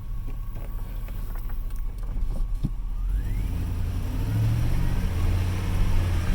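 2002 GMC Sierra 2500HD pickup engine running, picking up and getting louder about three seconds in, with a faint whine rising in pitch as it does.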